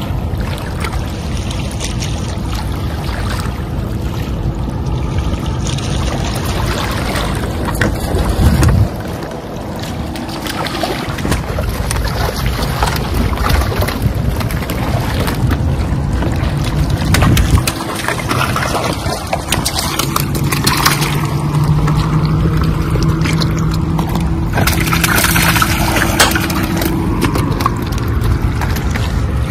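Wind buffeting the microphone and water washing against shoreline rocks, a dense continuous rush with a faint steady hum beneath it.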